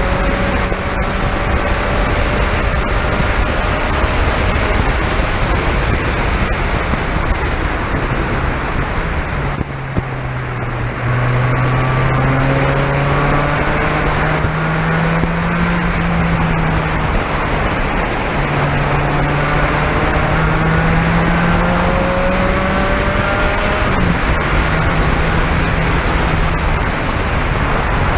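Onboard a Spec Racer Ford Gen3 at racing speed on a wet track: a heavy rushing of wind and water spray over the car's Ford 1.6-litre four-cylinder engine. The engine note dips and quietens about ten seconds in, then climbs again in several rising pulls through the gears.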